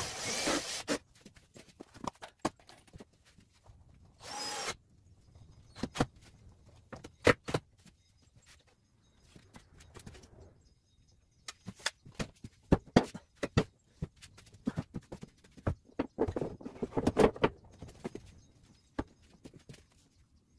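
Hand work with tools and wooden cabinet parts during a sink installation: scattered sharp clicks and knocks, with a noisy burst right at the start and a short steady burst about four seconds in.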